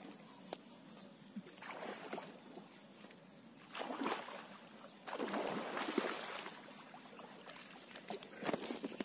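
Hooked snakehead (murrel) thrashing at the water's surface: several bursts of splashing, the longest about five to six and a half seconds in, with a few sharp clicks between them.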